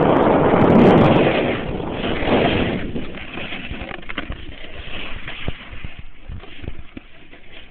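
Wind buffeting the microphone while moving down a snow slope, loud for about the first two and a half seconds, then dropping to a lower rumble with scattered low knocks.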